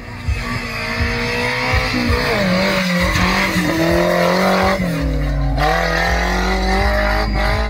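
Off-road 4x4's engine revving, its pitch rising and falling as the throttle changes, with sharp drops about two seconds in and again near five seconds.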